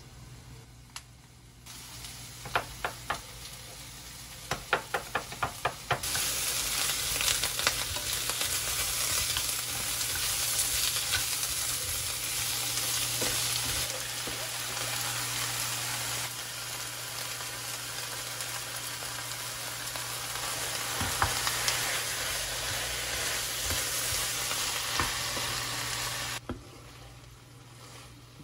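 Cabbage and squid sizzling as they stir-fry in a frying pan, with a run of sharp taps against the pan at first. The sizzle swells sharply about six seconds in and dies down near the end.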